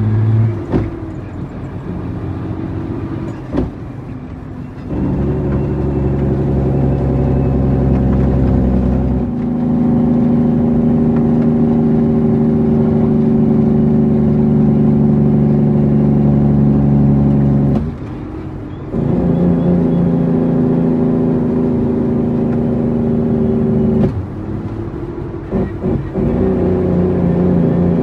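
Heavy-truck diesel engine of an International 9300 running under load, holding a steady pitch in long stretches. Its note drops away suddenly for about a second several times.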